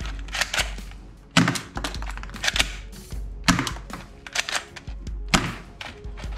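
Background music with a steady beat: a heavy thud about every two seconds, with lighter clicks in between.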